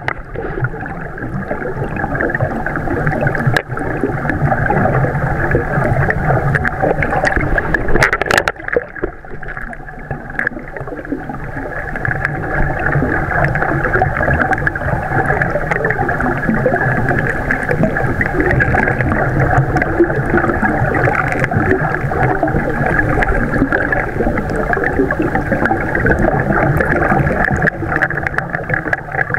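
Muffled underwater noise in a flooded cave: a steady rushing hum with gurgling, broken by a couple of sharp knocks in the first third.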